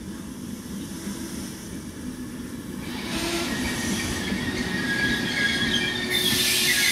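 Regional passenger train coaches rolling past on the rails, the sound growing steadily louder as they come by. About six seconds in, a high metallic squeal of wheels or brakes joins the rolling noise.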